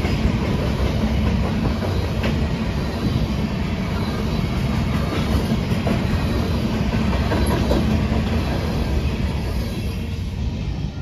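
Freight train of open-top hopper cars passing close by: a steady rumble of steel wheels on the rails, with scattered clicks as the wheels cross the rail joints.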